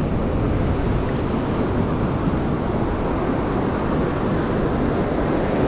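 Surf washing over the shallows, mixed with wind buffeting the microphone: a steady rushing noise, heaviest in the low rumble.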